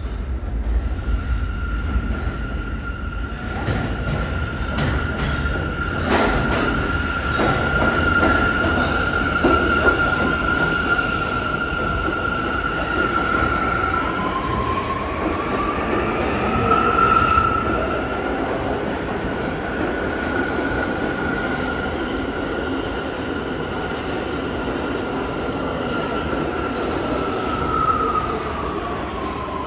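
New York City subway train moving through the station with its wheels squealing: a sustained high squeal over a steady rumble, with a second squeal tone rising in pitch about halfway through.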